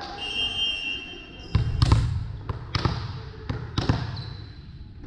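Volleyball bounced several times on the hardwood gym floor by the server before serving: sharp thuds, roughly in pairs, starting about a second and a half in, echoing in the gym.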